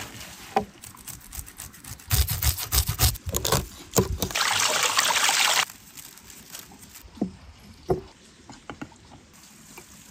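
Food-preparation handling sounds of raw fish and glass jars: a quick run of knocks and rustles, a steady hiss for over a second near the middle, then a few separate taps.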